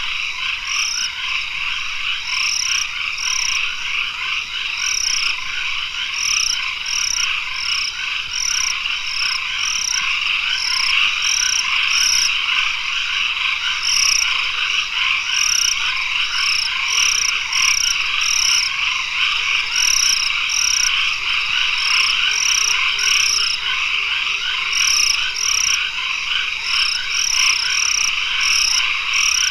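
Tropical forest dusk chorus: a dense, steady din of calling frogs, with short high-pitched notes repeating over it, one or two a second.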